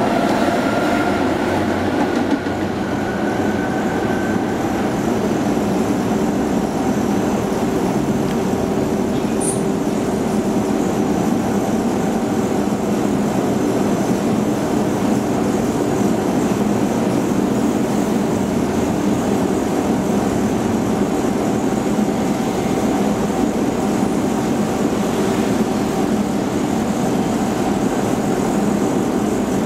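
Konstal 105N tram running along the track, heard from inside the car: a steady rumble of wheels and running gear with a motor-and-gear whine. The whine rises in pitch over the first few seconds as the tram picks up speed, then holds steady. There is one brief high squeak about ten seconds in.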